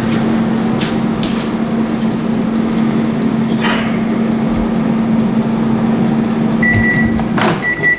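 Air fryer running with a steady fan hum; near the end a short electronic beep sounds a few times, the basket is pulled out with a clack, and the hum stops at once.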